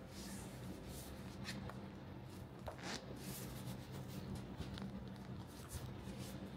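Gloved hands turning and rubbing the textured fabric carrying bag of a DJI Osmo Pocket 3: soft, scattered rustles and scuffs, with a slightly louder scrape about three seconds in, over a steady low hum.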